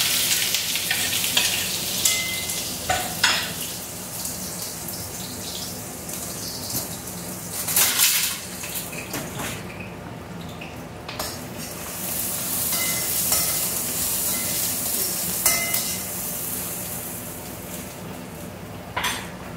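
Chopped onions sizzling in hot oil in a kadai. The sizzle is loudest at first and settles to a steadier, softer frying hiss, with a few sharp clinks of a utensil against the pan.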